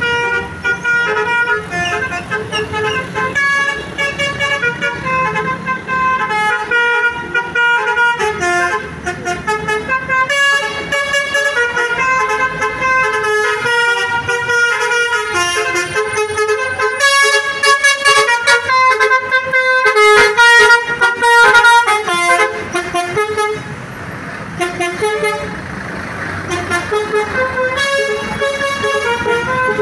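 Basuri V3 telolet horn playing rapid melodic runs of loud, multi-tone horn notes that step quickly from pitch to pitch. The notes briefly give way to a rushing noise about three-quarters of the way through.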